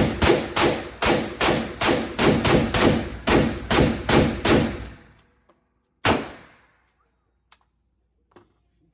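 Rapid gunfire at a shooting range: a fast string of shots at about three a second, stopping about five seconds in, then one more shot about a second later.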